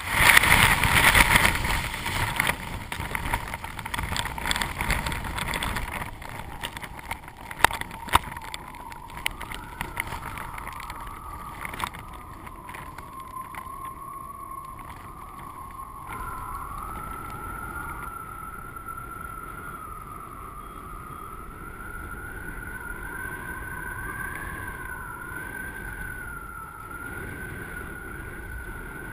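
Wind rushing over a camera mounted on a paraglider wing in flight, loudest in the first few seconds. From about a third of the way in, a high whistle runs steadily, wavering slowly up and down in pitch.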